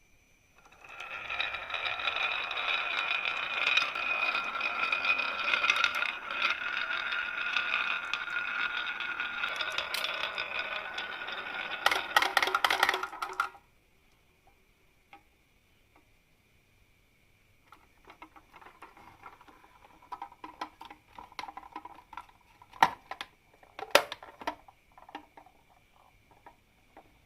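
Marbles rolling and clattering down a marble run: a dense, continuous rattle of many marbles for about twelve seconds that stops abruptly. After a short pause comes a lighter rolling rattle with a few sharp clicks, two of them loud, as marbles knock against the track.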